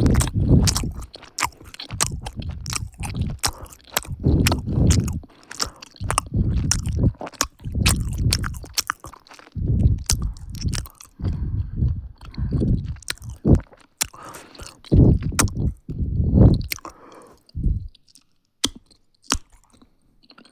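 Close-miked chewing and biting of chocolate, with many sharp mouth clicks among the chewing, thinning to a few scattered clicks over the last two or three seconds.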